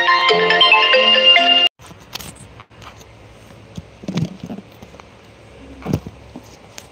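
A marimba-toned melody of short notes plays and cuts off suddenly about two seconds in. A few soft taps and knocks follow over quiet room tone.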